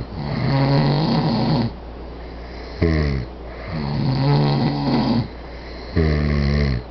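Two men snoring in turn. A short harsh snort with a falling pitch alternates with a longer drawn-out snore, the cycle repeating about every three seconds.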